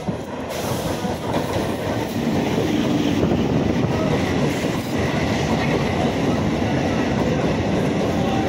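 Electric multiple unit (EMU) suburban local train running past close by, its wheels rumbling and rattling on the rails. It grows louder over the first few seconds, then holds steady.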